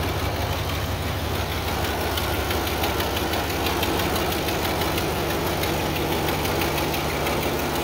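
Ford F-350's Power Stroke turbo-diesel V8 idling steadily with an even clatter. The truck has an exhaust leak, and the owner says it may need a new engine.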